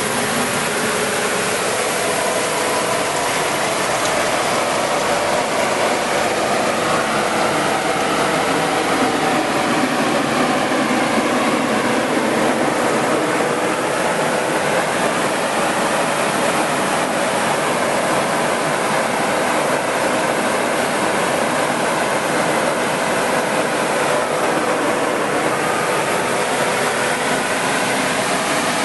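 5XZD-15AC grain cleaner and grader running steadily, its screens and drives working grain through the machine in an even mechanical din.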